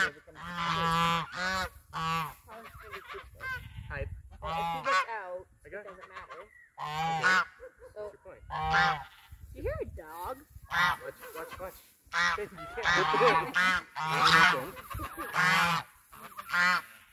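Geese honking: many short calls one after another, some overlapping, with a couple of brief lulls.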